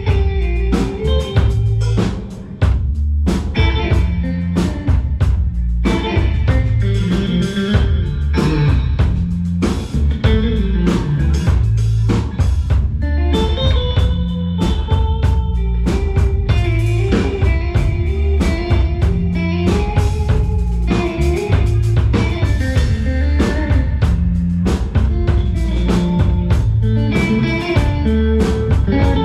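A live band playing an instrumental passage without vocals: electric guitar lines over a drum kit keeping a steady beat, with a heavy low end.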